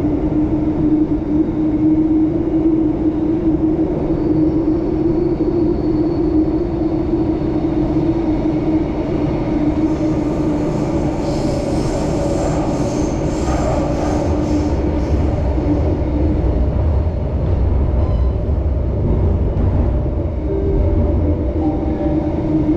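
Singapore MRT train running, heard from inside the passenger car: a steady hum and rumble of wheels and motors. About halfway through come a spell of clicks and higher-pitched squealing, then a deeper rumble.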